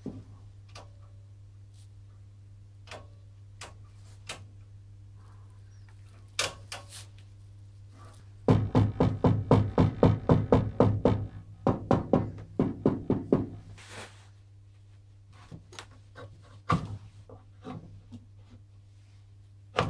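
Steady low mains hum from the powered-up valve equipment, with scattered clicks. About eight seconds in comes a rapid run of loud knocks lasting about five seconds, as a cable is handled and plugged at the metal front-panel output jacks.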